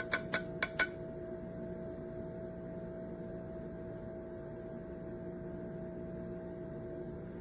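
A steady hum made of several level tones, with four quick, sharp clicks in the first second.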